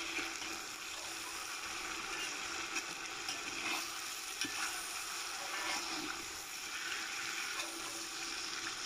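Meat sizzling steadily as it fries in fat in a cauldron, stirred with a metal slotted spoon, with scattered short clicks and scrapes.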